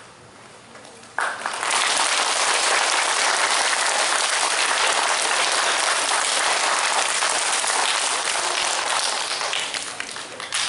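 Audience applauding. The clapping breaks out suddenly about a second in, holds steady and dense, and begins to die down near the end.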